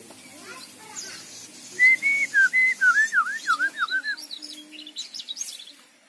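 Mugimaki flycatcher singing: a run of clear whistled notes, a few level ones and then several quick dipping ones, followed by a spill of higher, thinner chirps.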